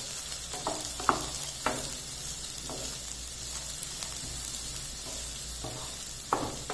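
Diced carrots and onions sizzling in oil in a nonstick kadai while a spatula stirs them, with a handful of short scrapes and knocks of the spatula against the pan.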